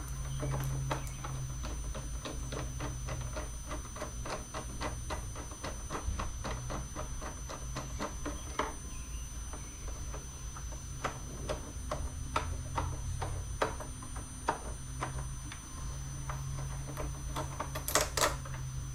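Hand ratchet clicking in runs of evenly spaced clicks, about three to four a second, with a few short pauses and a louder cluster of clicks near the end, while fairing fasteners are worked loose.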